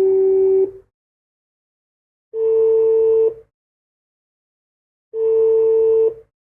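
Landline telephone ringback tone: a steady tone about a second long, repeating about every three seconds, three times. It is the signal a caller hears while the called phone is ringing.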